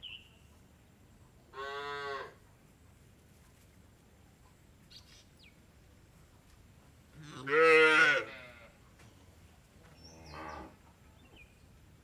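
Cows mooing: a short moo about one and a half seconds in, a long, loud moo around the middle, and a fainter moo near the end.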